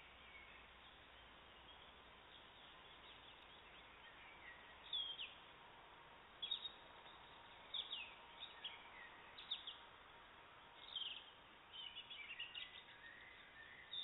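Woodland birdsong: short high chirps and calls, coming in about five seconds in and then several in quick runs toward the end, over a faint steady hiss.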